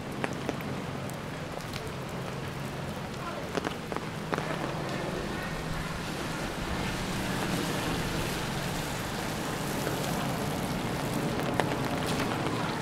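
Steady rain falling, with scattered sharp drip ticks.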